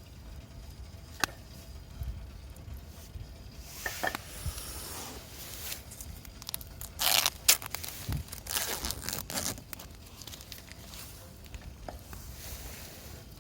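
A sharp click about a second in, then a run of irregular rustling and scraping handling noises at close range, loudest around the middle.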